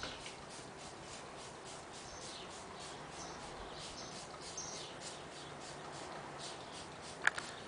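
Small birds chirping faintly: rapid, repeated high chirps with a few short whistled notes, and one sharp click near the end.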